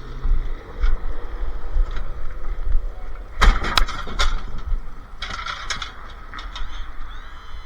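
Clanks and knocks in two quick clusters about halfway through and again a little later, from scrap being handled on the truck, over a steady low rumble.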